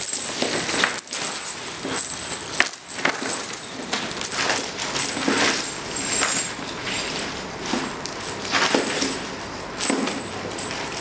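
Heavy metal chains wrapped around a person's body, clinking and rattling irregularly as the wearer moves against them.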